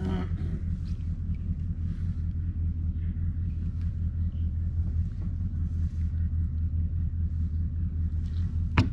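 Bay boat's outboard motor running at low speed, a steady low rumble, with one short sharp knock near the end.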